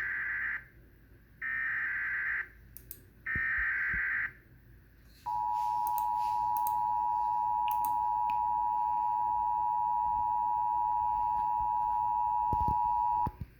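Emergency Alert System header: three short bursts of SAME digital data noise, then the EAS two-tone attention signal (853 and 960 Hz) held for about eight seconds before it cuts off. The sequence marks the start of a severe thunderstorm warning broadcast.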